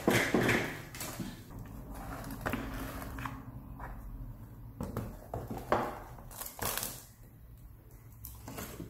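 Irregular clicks, knocks and clatter of a laptop motherboard being handled and fitted back into its plastic chassis, loudest at the start and about six seconds in.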